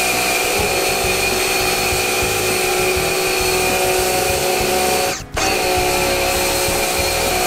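Bosch AQT 33-11 electric pressure washer running, a steady motor-and-pump whine over the hiss of its water jet as it sprays a scooter. It cuts out for a moment about five seconds in, then starts again.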